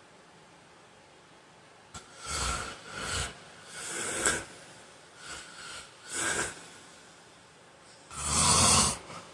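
A sleeping man snoring and breathing heavily. After about two seconds of quiet, a run of short, irregular snores and breaths comes, the loudest and longest near the end.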